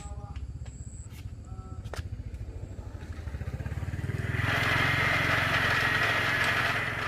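A small engine running with an even, rapid pulse; about four and a half seconds in, a louder hissing, grinding noise joins it for a couple of seconds, then stops.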